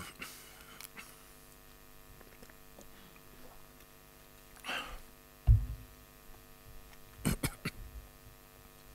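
Steady electrical mains hum from the microphone system in a quiet pause, with a plastic water bottle handled near the microphone: a short rustle about halfway through, a low thump just after it, and a few quick clicks about two seconds later.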